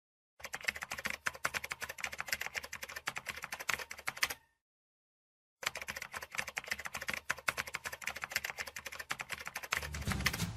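Rapid clicking of keys being typed on, in two runs of about four seconds each with a second's pause between them. Low music comes in under the clicking near the end.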